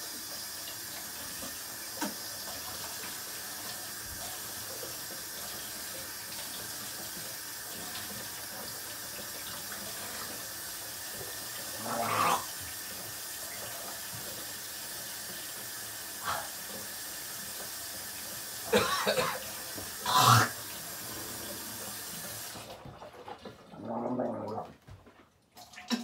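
Kitchen tap running steadily into a stainless steel sink while something is washed under it, with a few short knocks and clatters from things being handled in the sink. The water shuts off suddenly a few seconds before the end, leaving soft handling noises.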